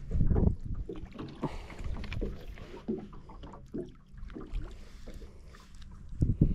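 Water slapping against the hull of a small fishing boat, with irregular knocks and handling noises as a perch and its lure are handled on deck. A heavy low bump comes right at the start and another near the end.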